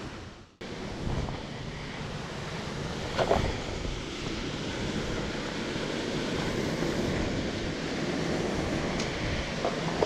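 Small mountain stream rushing and splashing over rocks, a steady wash of water, with a brief knock about three seconds in. The sound drops out briefly near the start.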